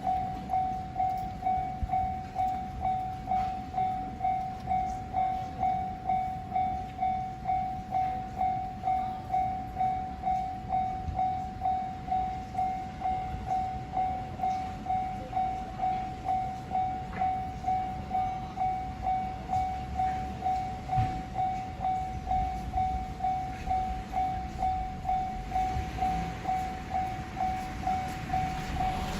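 Japanese level-crossing warning bell ringing at an even pace, about three dings every two seconds. The rumble of a JR West 221 series electric train builds near the end as it approaches the crossing.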